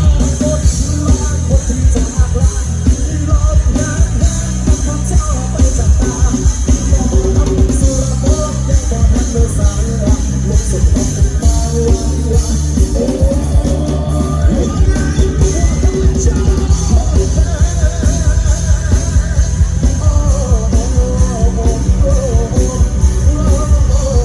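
Loud live rock band music through a PA system: a steady drum kit and bass beat, with a melodic lead line that bends and wavers in pitch in the second half.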